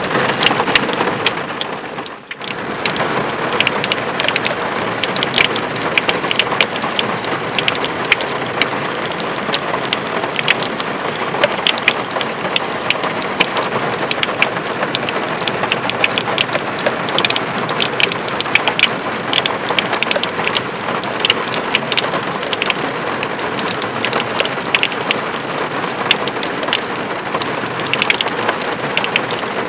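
Heavy rain falling steadily during a storm, with many sharp individual drop hits close to the microphone. The sound drops away for a moment about two seconds in.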